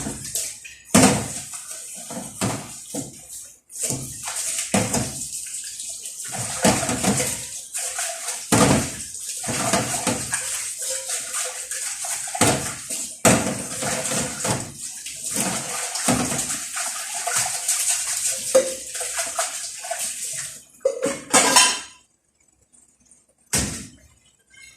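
Fava beans cooking in a pot on the stove: a steady watery hiss with irregular knocks of a utensil against the pot. The hiss stops about 21 seconds in, followed by a few short bursts of clatter.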